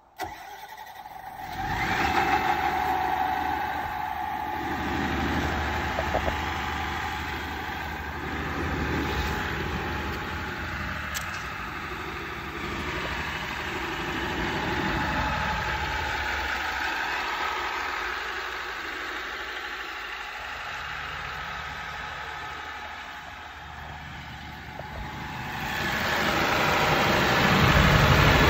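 JCB G220QS 220 kVA silent diesel generator starting up from its control panel, catching within about two seconds and settling into a steady run. It is muffled through the closed acoustic canopy and gets louder near the end, with a side door of the canopy open onto the engine.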